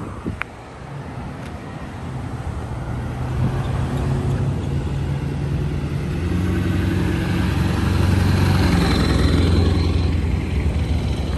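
Motor vehicle engine running close by: a low, steady engine hum that grows louder over several seconds and is loudest near the end, with a faint high whine joining late on.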